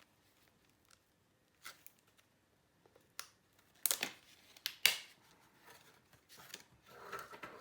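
Plastic packaging of a laptop RAM memory kit being handled and opened: a few separate sharp clicks and snaps, the loudest about four to five seconds in, then soft crinkling near the end.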